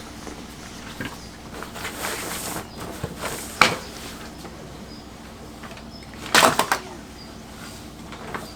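A few scattered knocks and clatters of things being handled, the loudest a short burst of several clatters about six and a half seconds in.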